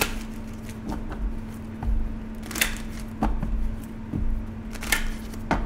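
A deck of tarot cards being shuffled and handled, with a few sharp card snaps and soft thumps, over a steady hum.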